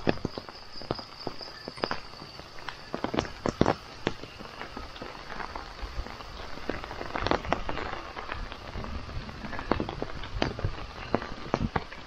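Footsteps walking across a waterlogged lawn, an irregular run of soft steps with some sharper knocks. A faint steady high tone sounds for the first two seconds.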